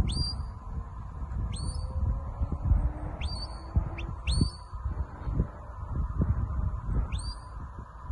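Shepherd's whistle giving commands to a working sheepdog: about six short, high notes, each sliding up sharply and then held, spaced irregularly. Wind rumbles on the microphone underneath.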